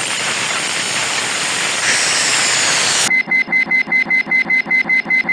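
Cartoon sound effects: a steady hiss for about three seconds, then a rapid ringing pulse, about seven beats a second, like an alarm bell.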